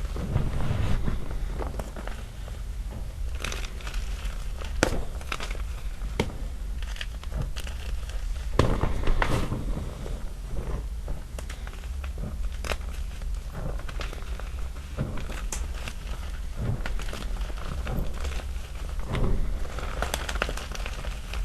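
Small chunks of gym chalk being crushed in loose chalk powder: irregular sharp snaps and crackles at uneven intervals, a few louder than the rest, over a soft crunching.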